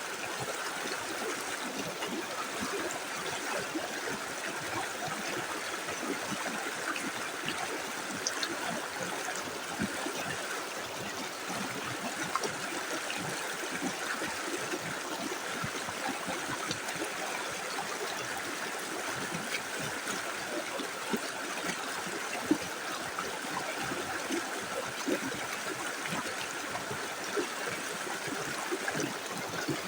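Small river flowing steadily, an even rush of water with small splashes and trickles through it.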